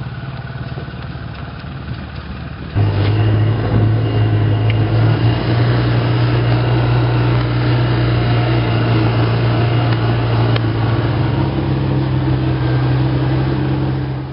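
Polaris Ranger side-by-side UTV's engine running at a steady pitch as it drives, getting markedly louder about three seconds in.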